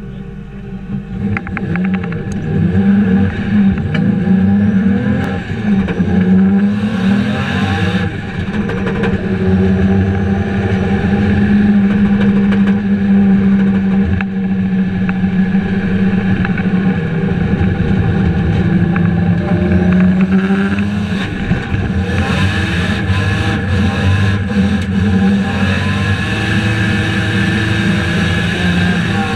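Turbocharged BMW M3 E46 drift car heard from inside its cabin, the engine running hard at high revs, its note rising and falling continuously as the car slides through the corners. Scattered clicks and rattles come in over the engine later on.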